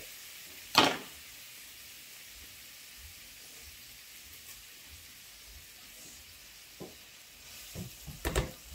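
Frying pan of shallots, garlic and vegetables in olive oil with broth, sizzling steadily. A sharp knock sounds about a second in, with a few smaller knocks near the end.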